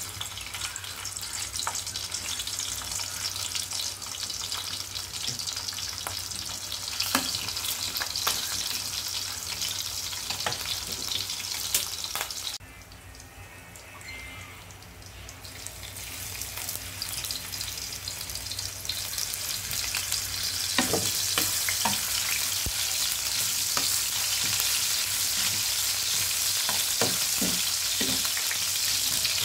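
Garlic cloves sizzling in hot oil in a frying pan, a steady hiss. About halfway through the sizzle drops away suddenly, then builds back up. Near the end a spatula scrapes and knocks against the pan as the garlic is stirred.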